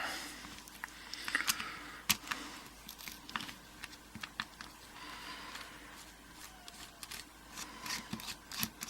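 Irregular small metallic clicks and short scrapes of a screwdriver working on a Mul-T-Lock Garrison padlock as it is taken apart.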